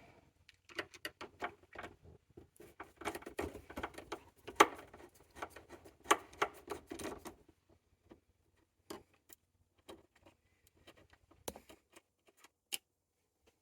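Small clicks, rattles and scrapes of hand tools, screws and metal parts as a part is removed from a Hewlett-Packard 1220A oscilloscope during disassembly: busy and close-packed for about the first seven seconds, then a few scattered clicks.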